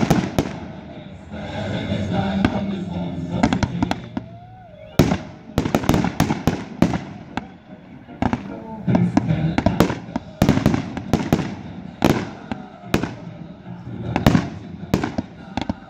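Aerial fireworks launching and bursting: a string of sharp bangs and crackles, sparse at first and coming thick and fast from about five seconds in.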